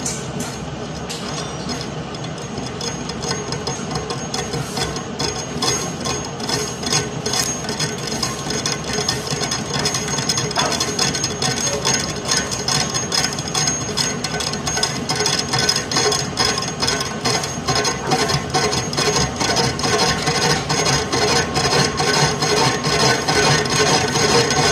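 Hammer tapping on metal in a long, fast run of regular strikes, several a second, growing slightly louder toward the end.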